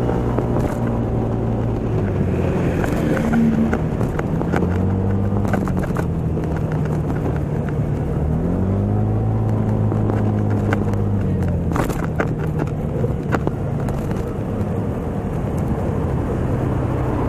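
Vehicle engine heard on board while driving, its pitch rising and falling several times as it speeds up and slows, over steady road and wind noise. A few sharp clicks come around twelve seconds in.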